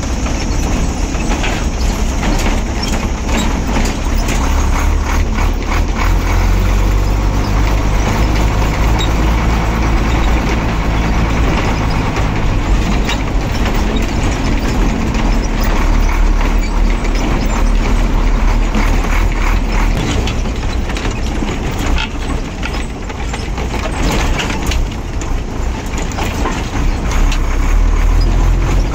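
Ashok Leyland 1611 Comet Super truck's diesel engine running while the truck is driven, heard from inside the cab, with frequent rattles and clicks. The engine note eases off a little past two-thirds of the way through and picks up again near the end.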